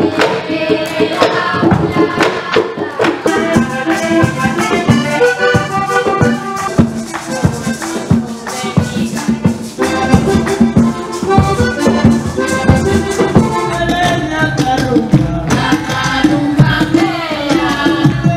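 Panamanian folk dance music: an accordion melody over rattling percussion and drums keeping a quick, steady beat.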